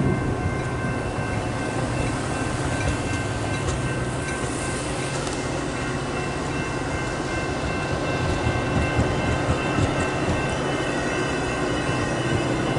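Metra bilevel commuter coaches rolling steadily past at close range: a continuous rumble of steel wheels on the rails.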